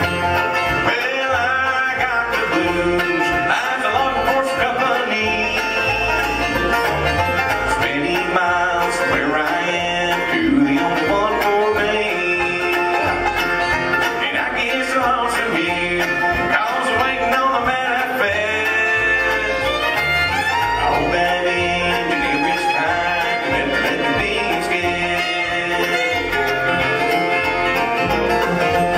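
Bluegrass band playing an up-tempo tune: banjo, fiddle, resophonic guitar, mandolin, acoustic guitar and upright bass.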